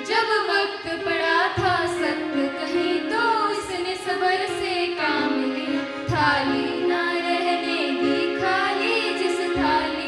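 Girls singing a Hindi song with sustained instrumental backing.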